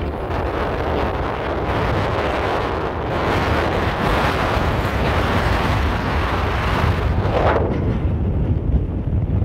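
Wind buffeting the microphone over the steady low rumble of a heavy diesel dump truck's engine running.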